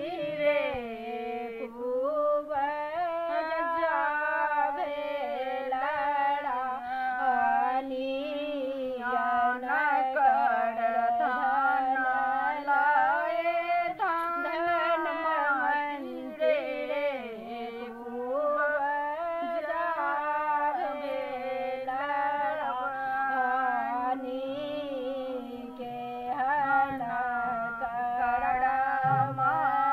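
Two women singing a song together, one long melody with wavering, sliding notes and only brief pauses for breath.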